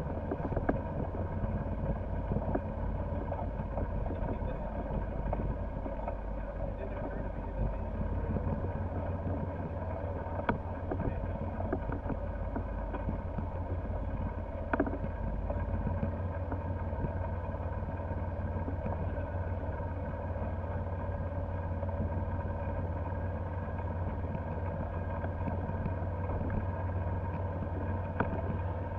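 Golf cart driving over grass: a steady motor whine over a low rumble, with a few sharp knocks from the cart jolting.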